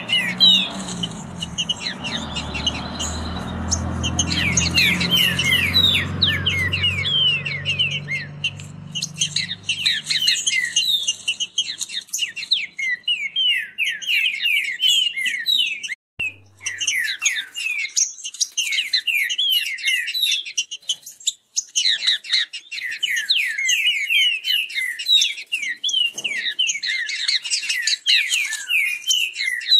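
Green-winged saltators (trinca-ferro) singing fast, dense, repeated phrases in a song contest between caged males. A low rumble sits under the song for the first several seconds.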